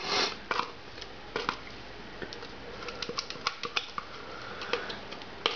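A spoon scraping wet spice paste onto raw chicken pieces in a plastic tub: a short scrape at the start, then irregular light taps and clicks.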